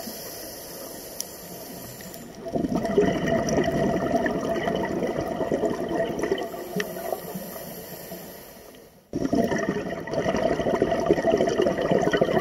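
Scuba regulator breathing heard from inside the dive: a quiet hiss of inhaling, then a gush of exhaled bubbles from about two seconds in that fades away, another hiss, and a fresh gush of bubbles starting abruptly about nine seconds in.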